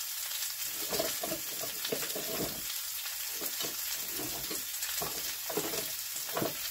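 Vegetables frying in olive oil in a hot cast-iron skillet, a steady sizzle. Over it come irregular clatters of utensils being rummaged through in a kitchen drawer.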